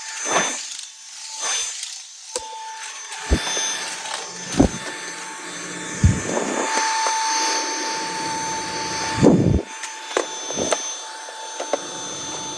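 Xiaomi Mi Vacuum Cleaner Lite 2 cordless stick vacuum running, its motor giving a steady high whine over the rush of suction. Several sharp knocks and scrapes come through as it is worked against surfaces to pick up dust.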